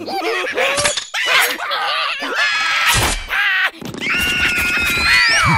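Cartoon character vocal effects: squeaky, wordless chattering broken by a few sharp knocks, then a long high cry held for about a second and a half that slides down in pitch near the end.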